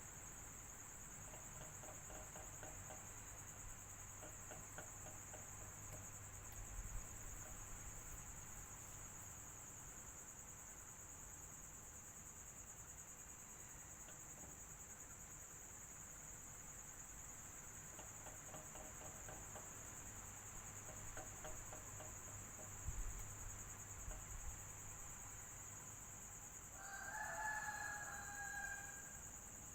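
Faint steady fan noise with a constant high whine and a low hum. A rooster crows once near the end, with a few soft chirps and low thumps earlier.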